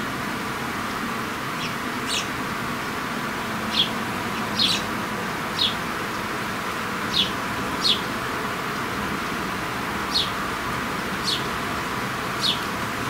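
House sparrows chirping: short, single high chirps at irregular intervals of about a second, over a steady background hiss.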